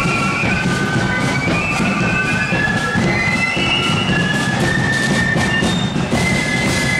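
Marching flute band playing a tune: many flutes shrilling the melody in unison over a steady beat of drums.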